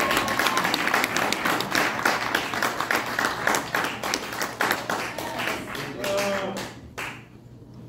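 Audience applauding, many hands clapping, with a few voices mixed in; the clapping thins out and dies away about seven seconds in.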